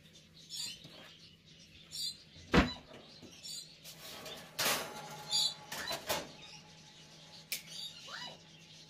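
Scattered kitchen knocks and clicks, the loudest a single sharp knock about two and a half seconds in, with a few brief rustles around the middle.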